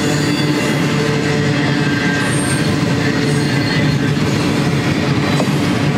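Intermodal freight train's well cars and trailer-carrying flatcars rolling past: a steady rumble of steel wheels on rail, with a few brief faint high wheel squeals.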